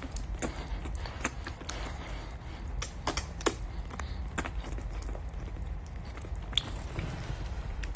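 Irregular wet smacking and clicking mouth sounds, like sucking or slurping, a few a second over a low steady hum.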